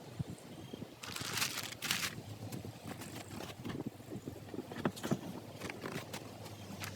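Handling noises as things are taken off a tractor: two rustling scrapes, one about a second in and a shorter one just after, then scattered knocks and clunks. A low steady hum runs underneath.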